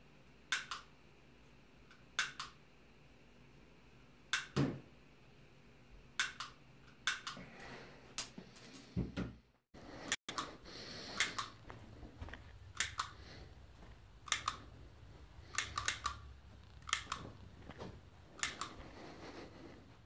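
Unloaded handgun being dry-fired and handled: a dozen or more sharp mechanical clicks at uneven intervals of one to two seconds.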